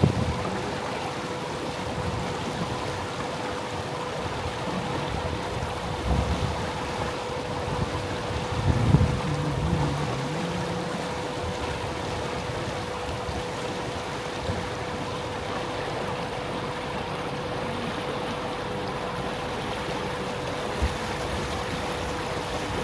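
Tour boat's motor running steadily with a constant hum, under a wash of water and wind noise. A brief louder low sound comes about nine seconds in.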